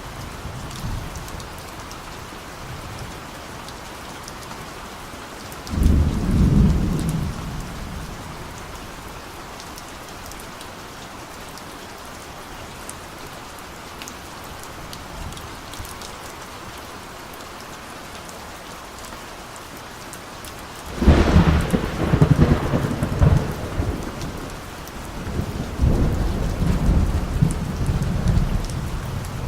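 Steady rain with distant thunder: a short rumble about six seconds in, then a louder, longer rolling rumble from about two-thirds of the way through that carries on to the end.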